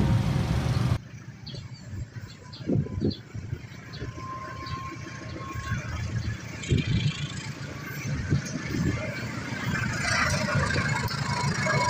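Ringing chime-like tones that cut off abruptly about a second in, then an approaching diesel locomotive hauling a passenger train: a low engine rumble with clicks from the rails that grows louder toward the end.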